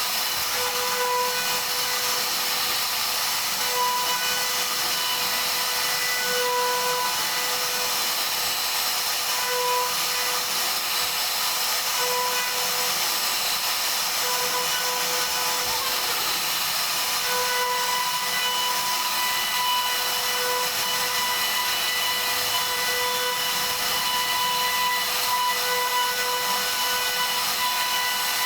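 CNC router spindle running while its bit carves wood: a steady high whine and hiss, with a tone that swells and fades every second or two as the cut goes on.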